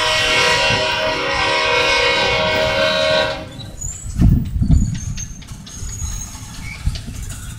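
Freight train passing close by: a locomotive's air horn sounds a held multi-note chord that cuts off about three seconds in. After that comes the rhythmic knocking and rumble of the freight cars' wheels rolling over the rail joints.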